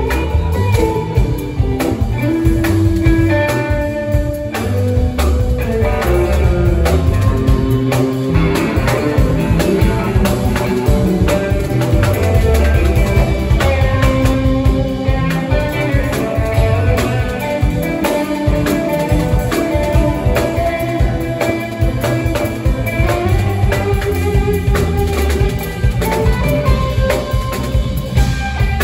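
Live rock band playing: two electric guitars with sustained lead lines over a drum kit keeping a steady beat.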